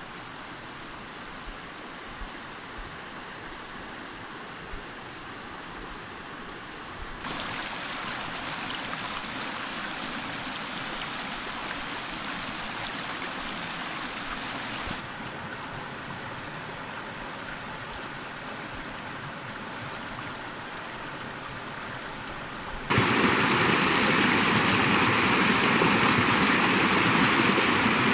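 Mountain stream rushing over rocks, a steady watery roar that grows louder in sudden steps and is loudest for the last five seconds, where white water splashes around the rocks. A few faint clicks in the first seconds.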